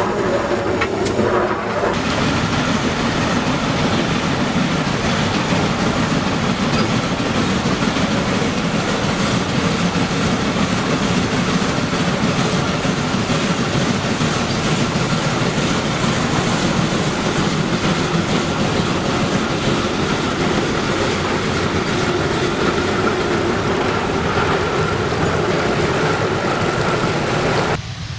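A Shay geared steam locomotive running along the track with its passenger car, a steady, continuous train sound. For the first two seconds, sounds from inside the cab as coal is shoveled into the firebox.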